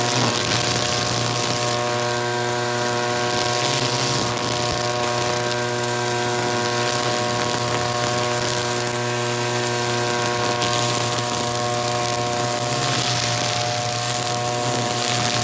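Petrol brush cutter with a nylon-line trimmer head running at a steady speed, its line cutting through tall grass.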